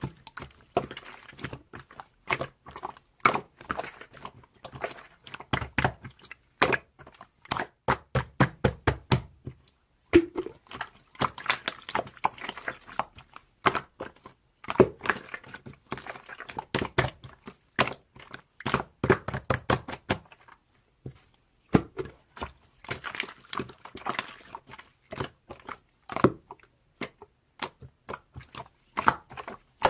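Irregular sharp taps, clicks and knocks, often several a second, like objects being handled, with a brief pause about two-thirds of the way through.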